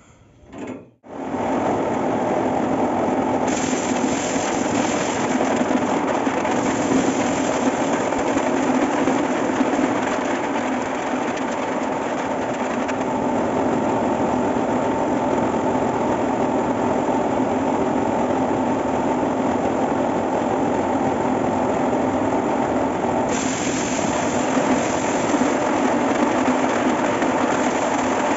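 Homemade corn sheller running steadily, its belt-driven drum and paddles spinning as it shells corn; the machine noise starts about a second in.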